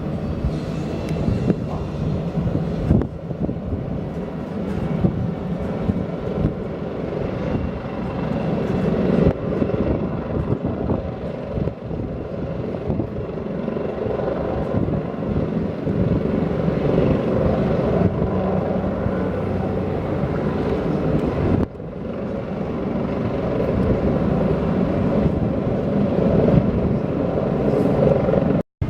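Helicopter engine and rotor noise, steady, with a short break just before the end.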